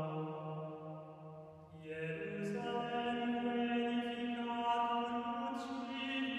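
Background music of slow chant with long held notes: the first note fades out, and after a short dip a higher note begins about two seconds in and is held.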